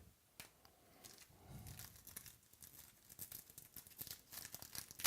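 Faint crinkling and crackling of a foil trading-card pack wrapper being torn open and handled, small crackles coming thicker in the second half.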